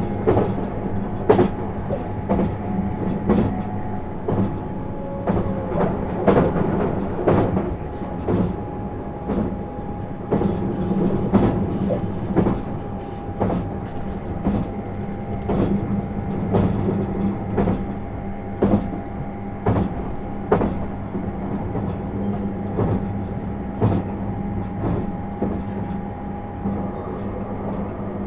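Inside a JR East 651 series electric multiple unit running along the line: a steady hum and whine from the running gear, with wheels clicking over rail joints about once or twice a second.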